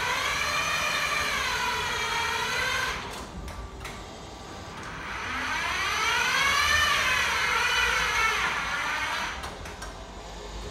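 Zonzini Domino stair climber's drive whining in two runs of about three and four seconds, the pitch rising and then falling in each, as it moves a 160 kg load. A few sharp clicks follow each run.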